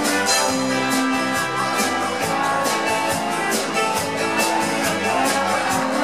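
Circus band music with a steady, quick beat.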